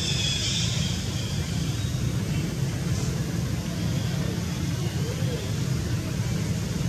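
Steady low rumble, with a high, thin call that fades out within the first second.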